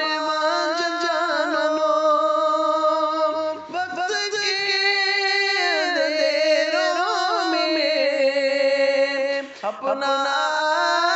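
Singing of an Urdu patriotic song: long held notes with a wavering pitch between sung lines. There are short breaks about three and a half seconds in and again near the end.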